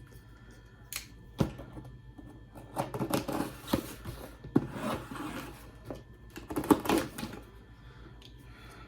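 A shipping box being opened and its packaging handled: scattered clicks and bursts of rustling and crinkling, with a cluster of louder crinkles near the end.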